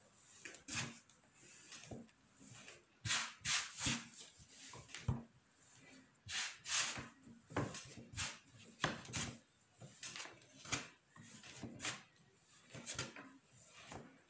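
Irregular knocks, clicks and rubbing sounds of objects being handled, about one a second, some with a short scraping tail.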